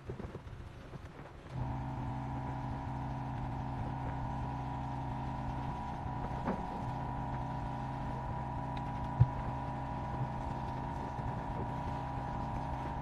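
A steady motor hum that switches on abruptly about one and a half seconds in and holds an even pitch, with a single short knock partway through.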